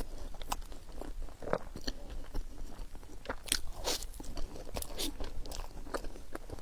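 Close-up eating sounds: a person biting and chewing roti lumer bread, with irregular smacking and clicking mouth noises.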